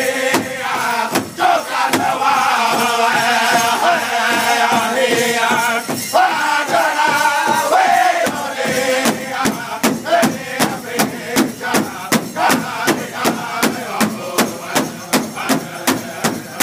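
A powwow drum group singing together in a chant while beating a large powwow drum in a steady beat. About nine seconds in the singing drops back and the drumbeat stands out alone, about two to three strikes a second.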